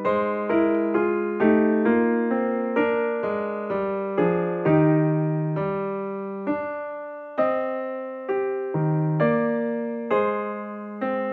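Background music: a gentle melody on an electric piano, single struck notes that die away, about two a second.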